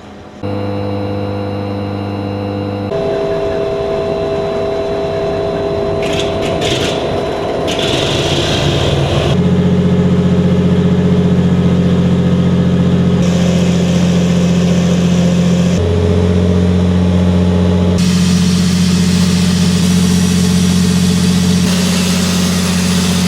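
300 kW biomass-gas generator set's engine running loudly and steadily, its pitch climbing once around eight seconds in as it picks up speed. The tone shifts abruptly several times.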